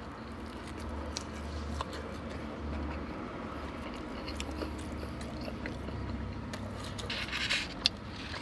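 Someone chewing and biting into birria tacos, with small wet mouth clicks over a steady low hum. There is a brief louder burst of noise and a sharp click near the end.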